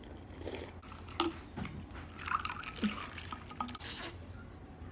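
A person drinking an iced drink from a glass mug: sips and swallows, with short clicks of ice cubes against the glass.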